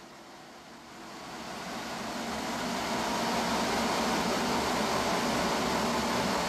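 A steady rushing noise, like a large fan or blower, swelling up from about a second in and then holding.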